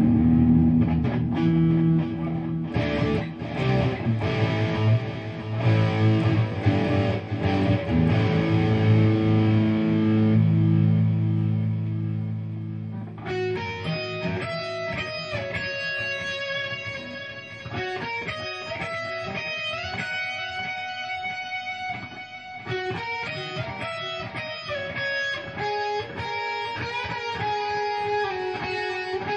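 Electric guitar played through a Me All Sound MP80D digital delay pedal. For about the first thirteen seconds thick, low chords ring out; then it changes to brighter, cleaner single-note lines whose notes keep repeating.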